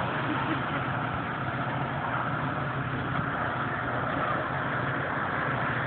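Twin P-120 turbine engines of a super-scale radio-controlled SR-71 model in flight, heard at a distance as a steady jet hiss and rumble.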